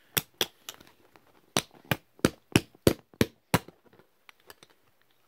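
Repeated sharp whacks of a blunt object against a plastic fidget spinner to break it: two quick strikes, a short pause, then seven more at about three a second.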